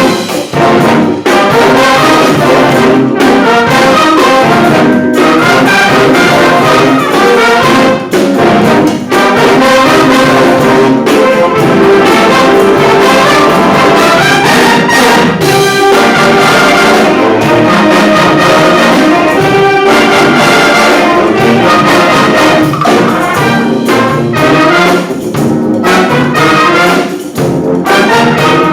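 A wind band playing loudly, led by brass: sustained chords and melodic lines with short breaks between phrases every few seconds.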